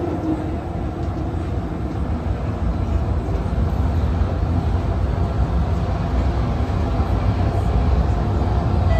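Steady low rumble of a CT251 electric metro train heard from inside the passenger car as it runs between stations, growing slightly louder toward the end.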